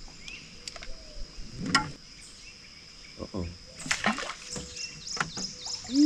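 Quiet swamp ambience around a small fishing boat: scattered light clicks and knocks from handling the rod, reel and boat, with birds chirping, a quick run of short chirps near the end.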